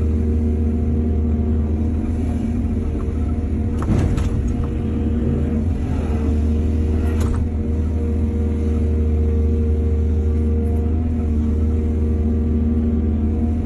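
Excavator's diesel engine running steadily with a low drone, with two sharp clanks about four and seven seconds in.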